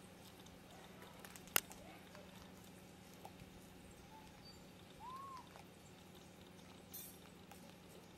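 Faint ambience with one sharp click about a second and a half in. About five seconds in comes a single short squeak that rises and falls, from a young long-tailed macaque.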